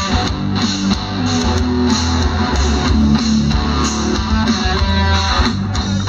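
A live band playing amplified music through a stage sound system, with electric guitars and bass guitar.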